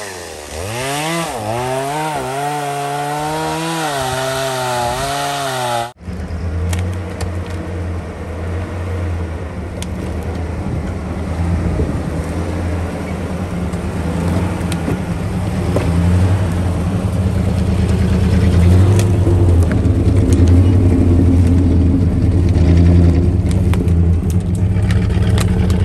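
A chainsaw running with its engine speed wavering up and down, cut off abruptly about six seconds in. Then a heavy truck's engine runs with a low, steady drone that grows louder.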